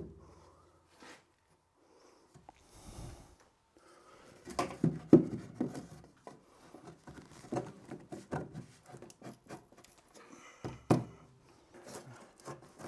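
A few scattered knocks and clicks from hand work with black ABS drain pipe and fittings against wooden ceiling joists overhead, starting about four seconds in after a quiet start.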